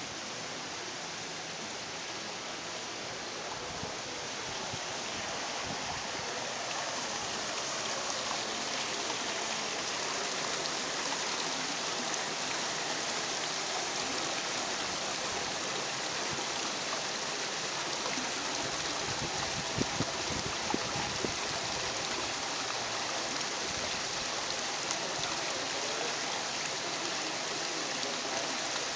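Steady rushing hiss like running water or rain, growing a little louder several seconds in and then holding, with a few faint knocks about two-thirds of the way through.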